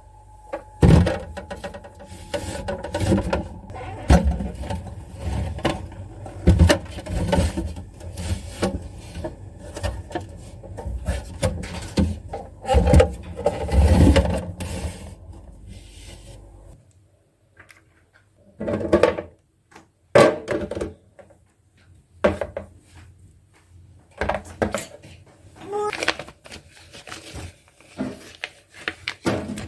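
Household items being handled and set down: irregular knocks, clicks and rubbing. A low hum runs beneath them and stops about 17 seconds in.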